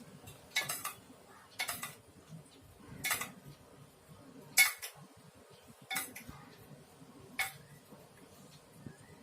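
A spoon clinking against a bowl while beaten egg is spooned over prawns: six short, sharp clinks about a second and a half apart, the fourth the loudest.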